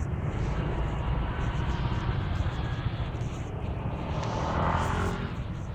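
Steady low rumble of wind and road noise from riding a Honda Click 125i scooter, with its single-cylinder engine running underneath. A brief brighter rise in the noise comes near the end.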